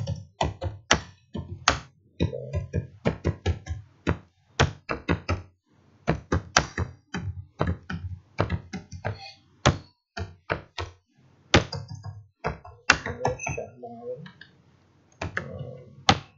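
Typing on a computer keyboard: irregular, heavy keystrokes several a second, in quick runs with short pauses between them.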